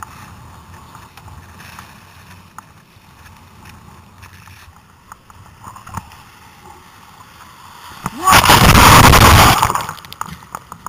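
Sea kayak in breaking surf: a steady rush and slap of water against the hull, then about eight seconds in a loud crash of white water for about two seconds as a breaking wave hits the kayak.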